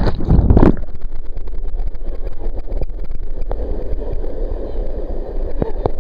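Water splashing loudly in the first second as a person rides a natural rock waterslide, then steady, muffled rushing and gurgling water.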